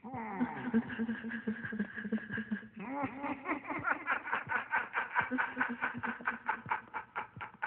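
Soundtrack laughter: a swirl of falling tones, then from about three seconds in a rapid run of ha-ha pulses, about five a second, over a steady held tone.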